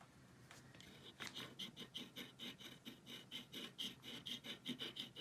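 Scratch-off card being scratched: rapid back-and-forth scraping strokes, about five a second, starting about a second in.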